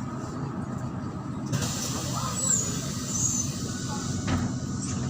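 MAZ-103 city bus running, its engine a steady low drone, with a burst of compressed-air hiss from the bus's pneumatics starting about a second and a half in and stopping sharply a little before the end, with two short high squeals in it.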